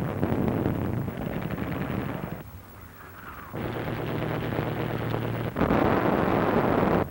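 Battle sound on an old newsreel soundtrack: dense gunfire with a short lull about two and a half seconds in, then rapid machine-gun fire. Near the end comes the loudest part, a broad rush of explosions.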